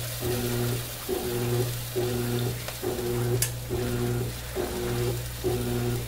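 Washing machine running in the background, its motor humming in regular pulses about once a second as it agitates. There is a single sharp click about three and a half seconds in.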